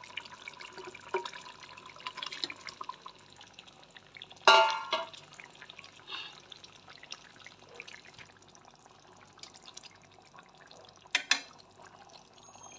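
Potato curry bubbling at the boil in a metal pan, with small clicks and knocks as fried eggs are put in. About four and a half seconds in comes one loud ringing metal clank, a utensil striking the pan, and near the end two sharp knocks.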